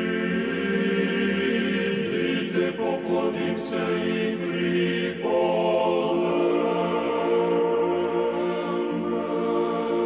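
Choral chant: voices holding long, sustained chords, with the harmony shifting to a new chord about five seconds in, and a brief high swish a little before that.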